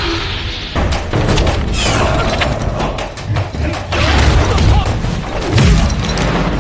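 Film fight-scene soundtrack: a quick run of hits, thuds and whooshes with deep booms, loudest about four to six seconds in, over music.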